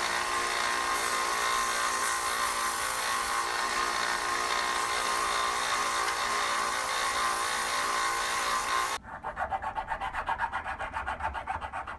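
A small bench belt sander running steadily as a maple burl pipe bowl is ground against its narrow belt. About nine seconds in it cuts off suddenly, and quick back-and-forth strokes of a hand file rasping the wood take over, several a second.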